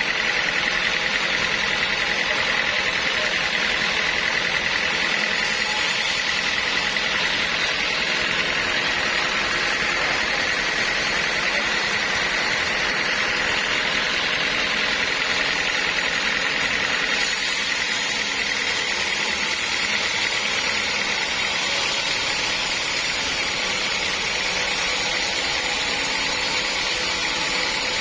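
Sawmill saw running steadily, with a high, even whine throughout. About two thirds of the way through, a brighter hiss joins in.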